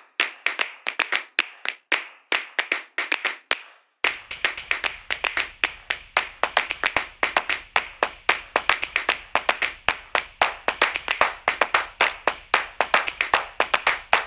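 Plastic poly mailer bag crinkling as it is handled: a quick, irregular run of sharp crackles, several a second, growing denser after about four seconds.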